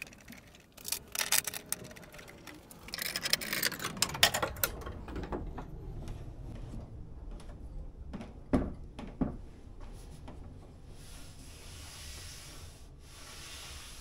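Clicks and rattles of 4-way pressure clamps on galvanized strut-channel rails being adjusted against a dry-fit oak panel, with two sharp knocks a little past the middle. Near the end, a soft rubbing of hands sliding over the boards.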